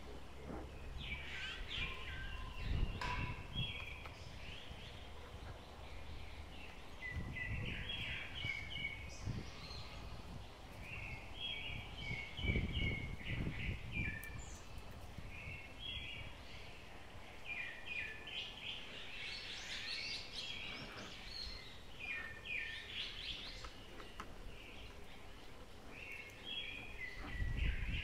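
Songbirds singing outdoors: short chirpy, trilled phrases repeating every second or two throughout. Occasional low rumbles come and go, loudest about three seconds in, around twelve to fourteen seconds, and near the end.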